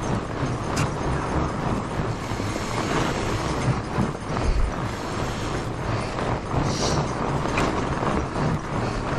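Fat bike rolling over a packed snow trail: tyres rumbling and crunching on the snow, the bike's drivetrain rattling, with a few sharp clicks and low thumps from bumps.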